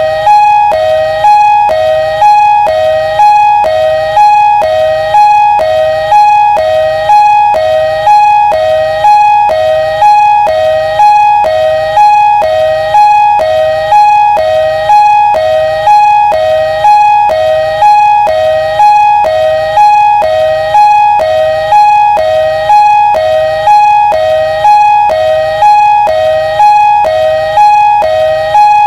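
Ambulance siren sounding a loud two-tone hi-lo call, alternating a higher and a lower note about once a second at a steady level.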